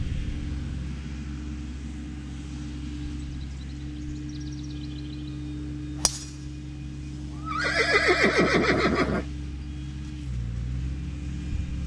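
A golf driver striking the ball off the tee with a single sharp crack about six seconds in. About a second and a half later comes the loudest sound: a whinny-like call, a fast quavering run falling in pitch, lasting under two seconds. A steady low hum runs underneath and changes near the end.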